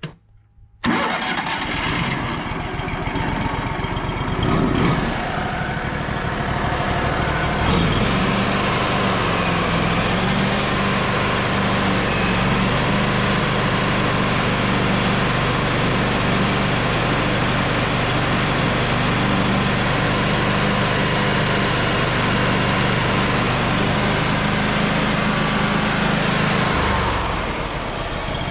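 Wood-Mizer LT35 band sawmill's engine starting abruptly about a second in and running loudly, settling into a steady drone about eight seconds in, then dropping off near the end.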